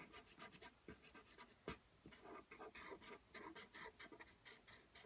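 Faint scratching of a drawing implement on paper, many short strokes in quick succession: someone sketching blindfolded.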